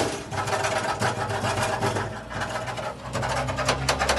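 A loose part on a Chevrolet Onix rattling rapidly over a low steady hum. The part has come loose from its mounting.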